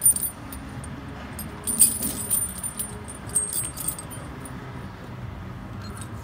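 Steel tire chains clinking and jingling as they are pulled and shifted by hand on a truck tire, with a flurry of rattling about two seconds in and another around three and a half seconds.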